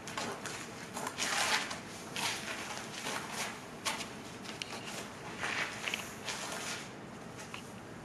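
A dancer's sneakers stepping, pivoting and scuffing on asphalt in an irregular rhythm, with some longer brushing scrapes.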